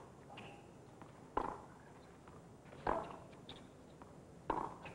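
Tennis ball struck by racquets in a baseline rally: three sharp hits about a second and a half apart.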